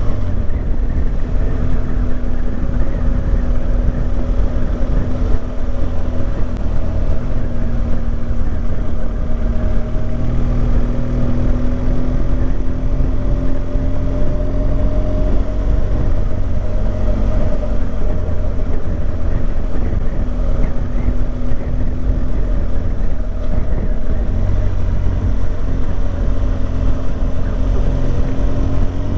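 Motorcycle engine running at a steady cruising speed, its pitch drifting gently up and down, under a heavy rumble of wind noise on the microphone.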